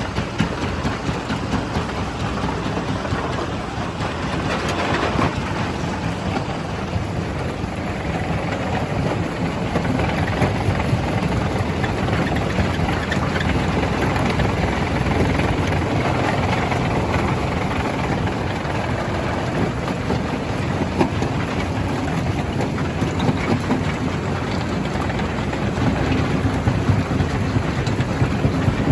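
Stone crusher machine running and crushing rock: a continuous dense grinding and clattering of stone under a steady engine drone.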